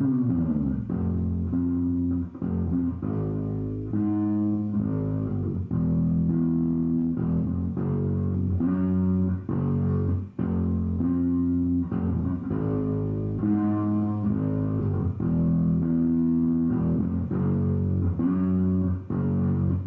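Acoustic instrumental music: guitar with a deep bass line playing held chords that change about once a second.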